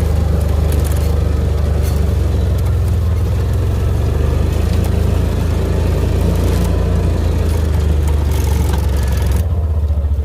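An engine running steadily at a constant speed, with a low, even pulsing throb; the higher hiss drops away near the end while the engine keeps running.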